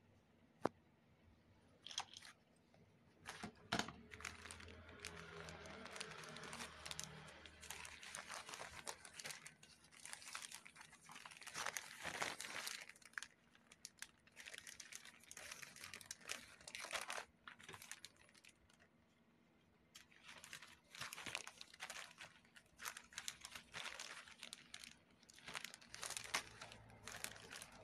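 Plastic courier mailer bag crinkling and rustling in irregular bursts as it is handled and opened by hand, with a short pause about two-thirds of the way through. One sharp click comes just before the rustling starts.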